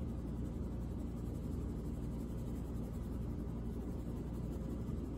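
A steady low background hum, with a crayon scribbling on chart paper.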